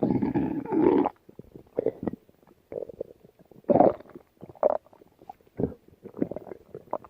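Stomach growling and gurgling in irregular bursts: a long loud rumble over about the first second, then shorter gurgles roughly every second, with a strong one about four seconds in.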